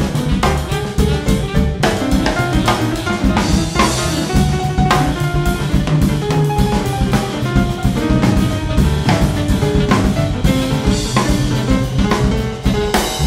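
Jazz quartet of alto saxophone, piano, bass and drums playing, with the drum kit prominent: busy drum hits over short piano or horn notes and a walking bass line.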